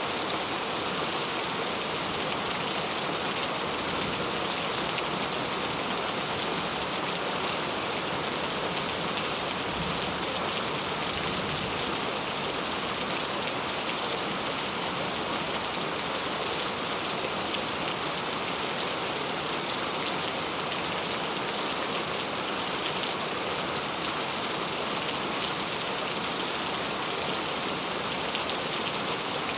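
Steady rain falling, an even hiss of drops with faint scattered patters.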